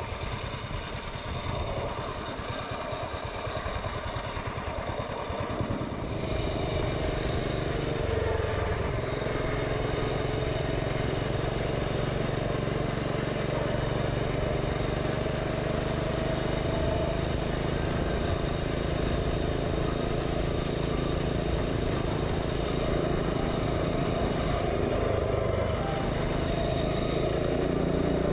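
Mini bike's small single-cylinder engine under throttle, pulling from walking pace up to about 30 mph. It is uneven at first, then settles about six seconds in to a steady drone that creeps slowly higher in pitch.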